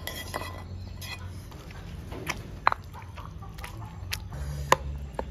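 Stone pestle pounding tomatoes in a stone mortar: irregular knocks, a few of them sharp, starting about two seconds in as the tomatoes are crushed into the paste.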